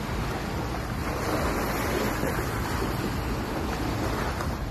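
Steady rush of small waves washing onto a sandy beach, mixed with wind buffeting the microphone. The noise swells a little about two seconds in.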